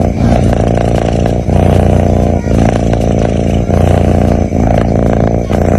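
A sleeping cat snoring close to the microphone: a loud, low, buzzy rattle with each breath, the breaths about a second long and separated by brief dips.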